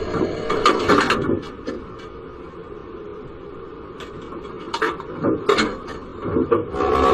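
Tram cab noise: a running rumble that drops after about a second, with a few sharp clicks and knocks later on.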